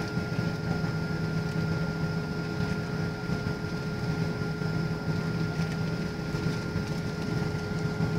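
Airliner cabin noise in flight after takeoff: the steady low drone of jet engines and rushing air, with a faint steady whine above it.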